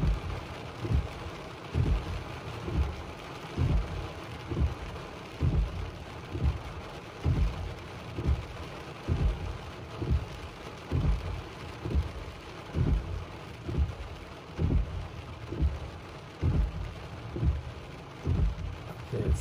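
Windshield wipers sweeping back and forth with a regular low thump about once a second, over steady rain on the car's windshield and roof, heard from inside the car.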